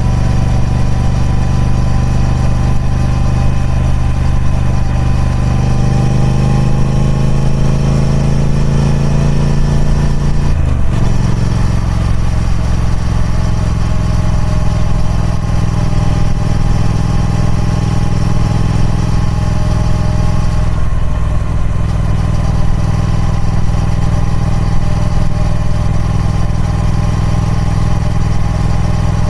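Triumph Speed Twin 1200's parallel-twin engine through its stock exhaust, running steadily under load. Its pitch climbs slowly for a few seconds, then drops sharply at an upshift about eleven seconds in, with another brief dip around twenty-one seconds.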